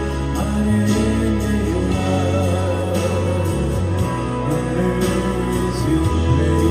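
Background music with held instrumental chords and a light, regular beat.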